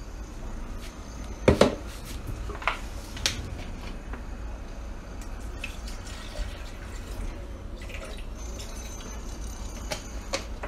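Water poured from a plastic bottle into the plastic measuring jug of a Beaba Babycook steamer-blender, trickling and dripping. A sharp knock about a second and a half in, with a few lighter clicks of handling after it and near the end.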